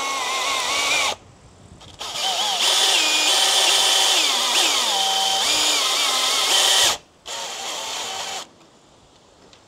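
Power drill driving screws in three runs: a short one, a long one of about five seconds whose motor whine rises and falls in pitch as the trigger is eased and squeezed, then a shorter, quieter one.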